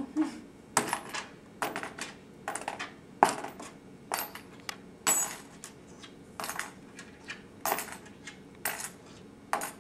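Small metal objects such as coins, nuts and washers dropped one at a time into a small cardboard box. Each lands with a sharp click or clink, roughly one a second, about a dozen in all, some with a brief metallic ring.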